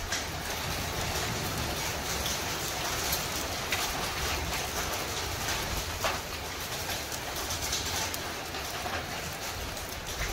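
Hailstorm with rain: a steady hiss of falling rain, with hailstones striking as scattered sharp clicks and knocks.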